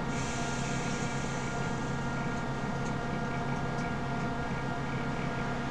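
Steady low electrical hum, with faint hookah water bubbling as a long draw is taken through the hose.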